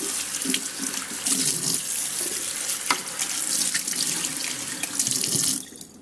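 Tap water running into a sink while parts are rinsed under it, with a couple of light knocks. The water cuts off abruptly near the end.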